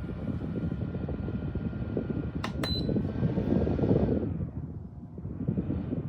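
LIPETY 9-inch portable pedestal fan running, its airflow rushing against the microphone over a faint motor whine. About two and a half seconds in there is a short beep; a second or so later the whine drops in pitch and the air rush falls off, then swells and fades about every two seconds.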